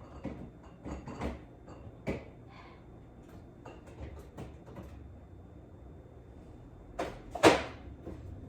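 Kitchen handling sounds: scattered light knocks and clicks of things being moved and put away, then one loud knock about seven seconds in.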